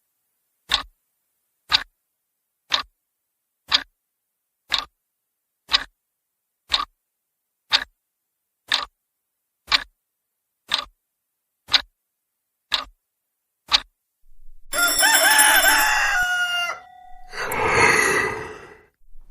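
A clock ticking, one tick a second, about fourteen times. About 15 seconds in, a rooster crows.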